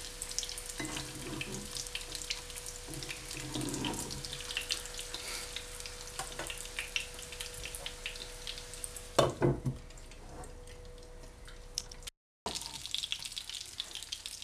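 Breaded chicken cutlets sizzling and crackling in hot sunflower oil in a frying pan. A couple of sharp knocks come about nine seconds in, after which the frying is a little softer, and the sound cuts out briefly just after twelve seconds.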